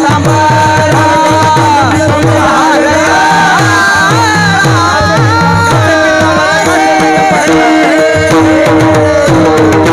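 Marathi devotional kirtan music: singing over a steady harmonium drone, with a hand drum playing repeated bass strokes that slide down in pitch.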